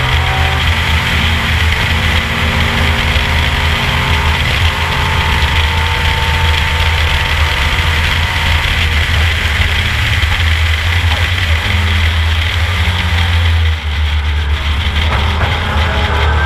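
Ford Capri race car's engine running hard at steady revs on track. It dips briefly about fourteen seconds in, then the revs rise again near the end.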